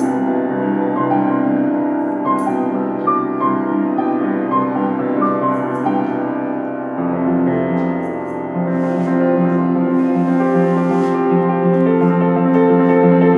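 Instrumental music: sustained chords on a piano-like keyboard with a few short high notes picked out over them; about halfway through the chords change and lower notes come in.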